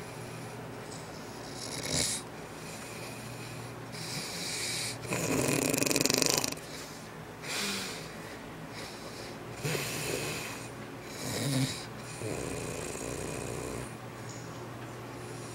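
Snoring from a sleeper: a run of irregular snores and breaths, several seconds apart, over a low steady hum. The loudest is a long snore about five to six and a half seconds in.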